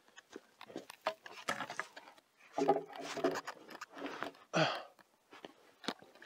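A man breathing hard and grunting with effort, mixed with footsteps and scuffs on dry ground, while he carries a heavy hewn timber beam on his shoulder.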